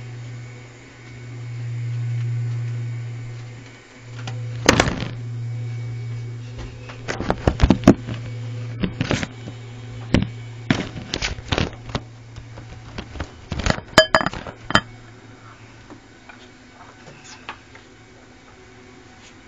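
Sharp knocks and rattles from a wooden rabbit hutch with a wire-mesh floor, in irregular clusters from about five to fifteen seconds in, over a steady low hum.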